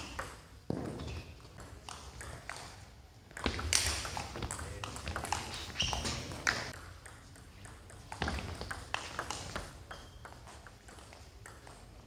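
Table tennis ball clicking off paddles and the table in rallies, sharp ticks echoing in a large sports hall, with a lull between points.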